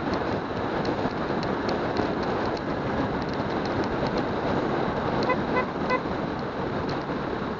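Steady rushing wind and road noise from a motorcycle riding on a wet road, with a vehicle horn tooting three quick times about five seconds in.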